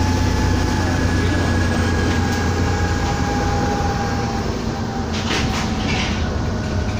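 Cabin noise of an Alexander ALX400 double-decker bus on the move: a steady low engine drone and road rumble with a thin, steady whine above it. A few brief rattles come about five seconds in.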